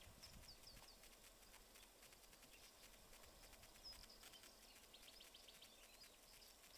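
Near silence, with faint bird chirps now and then, coming in quick groups of a few short notes.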